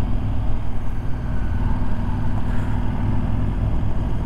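KTM Super Adventure S motorcycle's V-twin engine running steadily with an even low hum.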